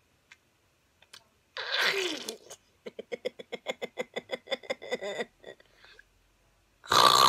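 Girls' non-verbal vocal sounds: a short squeal, then a run of rapid, rhythmic giggling pulses lasting about two seconds, and a loud, noisy vocal outburst near the end.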